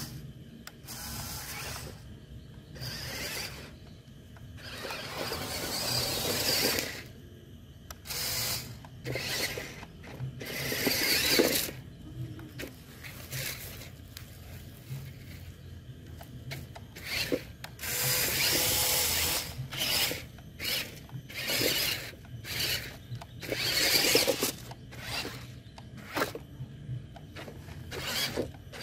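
Electric motors and gearboxes of RC model trucks whirring in repeated on-off bursts of throttle, over a steady low hum.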